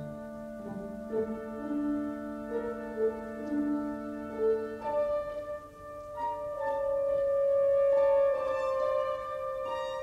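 Classical background music: slow, held notes that change every half second or so, with one longer, louder note swelling about two thirds of the way through.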